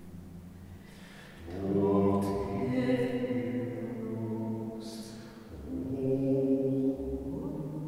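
Two unaccompanied voices, a man's and a woman's, singing long, sustained semi-improvised lines in a stone hall. A low held tone gives way to a louder phrase about a second and a half in, and a new phrase enters near the end.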